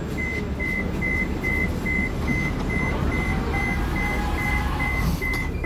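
Door-closing warning of a Moscow Metro Moskva-2020 (81-775/776/777) train: a run of evenly spaced, high single-tone beeps, a little over two a second, sounding while the doors slide shut, over the train's steady low hum.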